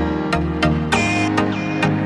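Background music with a steady beat, about two beats a second, with plucked-string notes.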